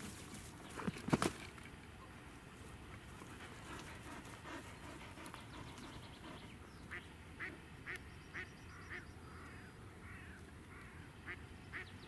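A duck quacking, most likely a live decoy hen, with a run of quacks at about two a second from just past the middle and again near the end. There is a sharp knock about a second in, louder than the quacking.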